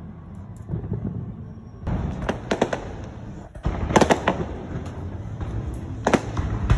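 Aerial fireworks shells bursting in a string of sharp bangs and pops over a low continuous rumble, starting about two seconds in, with the loudest cluster of bangs about four seconds in.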